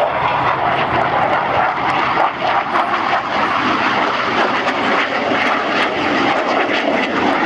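Engine noise of aircraft flying past in formation: a loud, steady rushing engine sound with no clear rise or fall.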